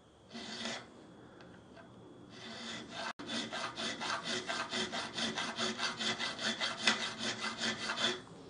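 Triangular file scraping across the top of a steel bolt, cutting the first groove of a pattern punch. One stroke comes just under a second in; from about three seconds in, quick, even back-and-forth strokes follow, several a second.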